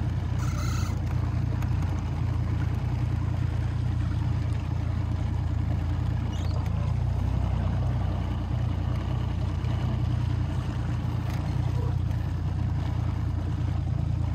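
Boat motor running at a steady cruising speed, heard from on board: an even low drone with a steady hiss over it.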